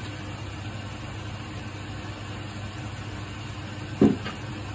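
Steady hiss of a gas stove burner and a pan of beef and konnyaku simmering in white wine, with a single short thump about four seconds in.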